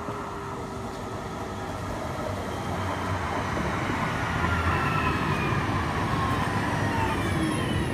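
Electric SNCF tram-train pulling into the platform and slowing to a stop. Its running noise grows louder over the first few seconds, and a thin whine falls in pitch as it slows.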